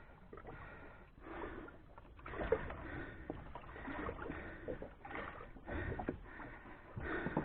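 Irregular swishing and small knocks of water and handled gear on a small fishing boat at sea.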